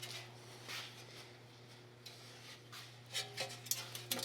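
Quiet shop room tone: a steady low hum, with a few light clicks and rubs near the end.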